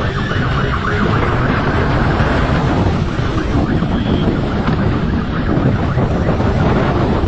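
Steady rush of wind on the microphone of a fast-moving motorcycle, with road and engine rumble underneath.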